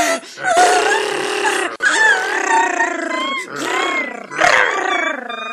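Dogs growling and snarling as they attack, in several loud, wavering bouts.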